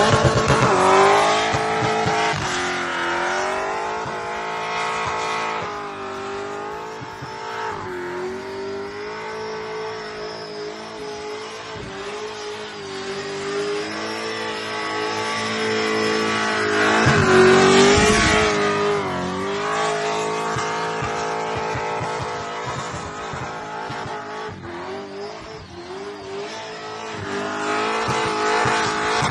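Supercharged burnout car's engine held at high revs with the rear tyres spinning and smoking. The note stays steady and high, dipping briefly now and then, and is loudest a little past the middle.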